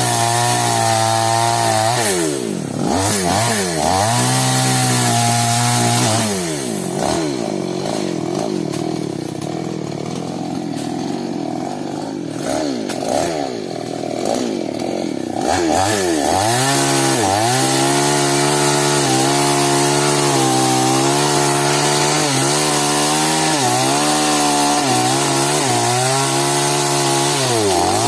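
New West two-stroke chainsaw running at high revs while cutting a sengon trunk. Its pitch dips and recovers a few times early on, runs lower and rougher for about ten seconds in the middle, then dips and climbs back every second or two.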